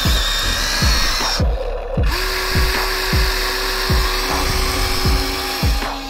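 Electronic background music with a deep, pitch-dropping kick beat about twice a second and held bass notes, over the high whine of a toy remote-control excavator's small electric motor, which cuts out briefly about a second and a half in.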